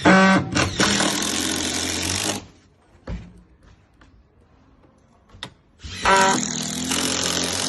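Impact driver driving a screw with the bit not seated centrally in the screw head: two runs of rapid hammering about four seconds apart, each starting with a rising whine as the motor spins up. This off-centre running wears the bit and the screw head round.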